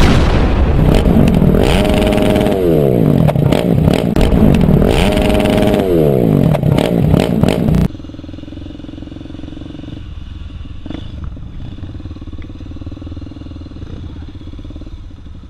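Dirt motorcycle engines running loud and revving, the pitch climbing and then dropping twice. About eight seconds in the sound cuts off abruptly to a much quieter, steady engine hum.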